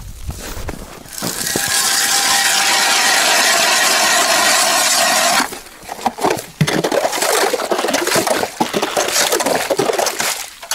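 Hand ice auger drilling through first lake ice about 20 cm thick. There is a steady grinding for about four seconds, then irregular scraping and crunching as the blades keep cutting in the slushy hole.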